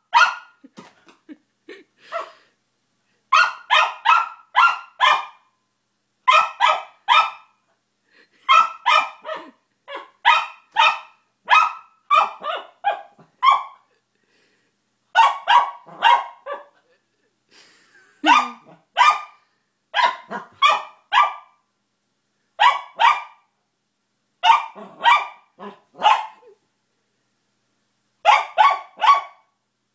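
Small dog barking in quick runs of three to five barks with short pauses between, barking at a new squeaky toy it is trying to make work.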